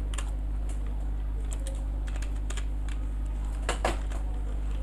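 Computer keyboard keys clicking as a word is typed: scattered keystrokes with short pauses between them and a quick run of several keys near the end, over a steady low hum.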